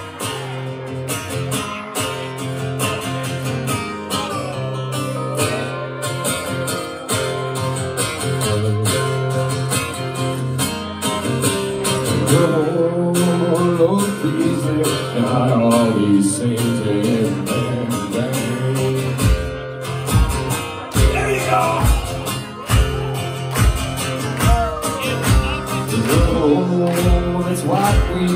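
Live band playing a fast song that blends bluegrass and thrash metal: rapidly strummed acoustic guitar with electric guitars. A kick drum comes in about two-thirds of the way through with a steady beat.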